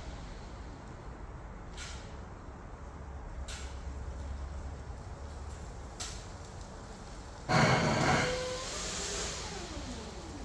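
Forklift running and pushing a dead electric car into a shop bay: a steady low rumble with a few sharp clicks. About three-quarters of the way through comes a loud burst of hiss lasting under a second, followed by a falling whine.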